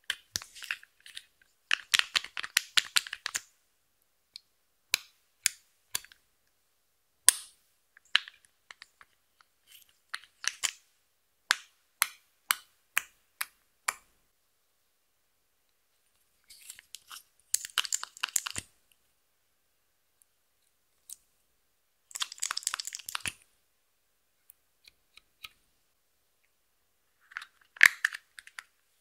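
Pressed eyeshadow being broken and crumbled by hand: bursts of crackling and crunching, with single sharp clicks in between. Near the end, a small plastic glitter case clicks as it is handled.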